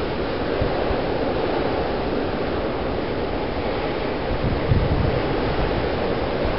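Blizzard wind blowing steadily and buffeting the microphone, with a stronger gust about five seconds in.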